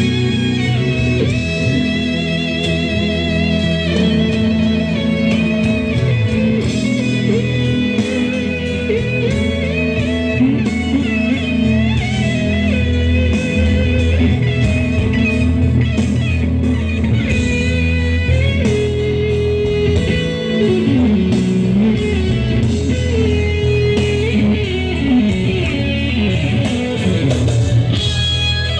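Instrumental music with an electric guitar lead over bass and a steady beat, played loud through a PA sound system under test.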